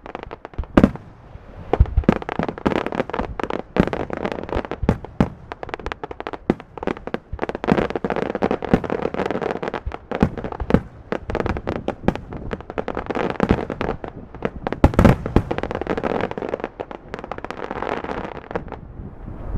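Fireworks display with a rapid, continuous run of shell bursts and crackling. A few louder bangs stand out, one about a second in and a pair around fifteen seconds.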